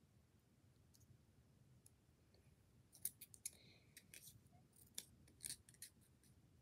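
Faint snips of scissors cutting paper, a run of short sharp clicks starting about halfway in.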